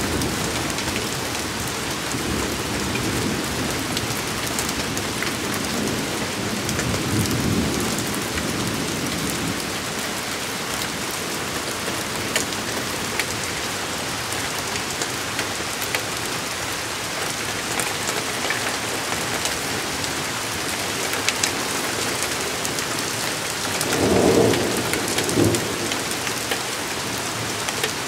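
Heavy thunderstorm rain pouring steadily, with sharp ticks of drops hitting close by. Thunder rumbles about seven seconds in and again, louder and shorter, near the end.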